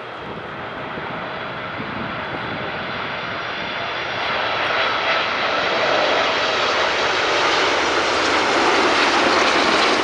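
Boeing 747-8F freighter's four GEnx-2B turbofans at approach power on final, a jet rumble with a steady whine over it, growing steadily louder as the aircraft passes close by and loudest near the end.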